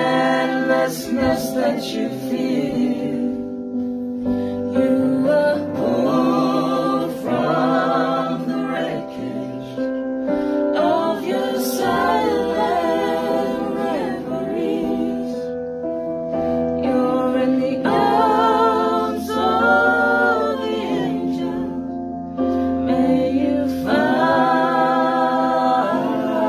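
A small group of men and women singing a cappella in harmony, holding long sustained notes.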